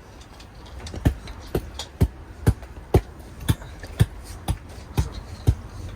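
Steady hammer blows driving a tent stake into the ground, about two strikes a second, starting about a second in.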